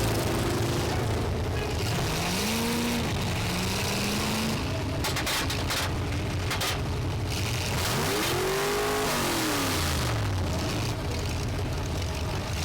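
Demolition derby car engines revving, pitch rising and falling twice, with a few sharp knocks around the middle.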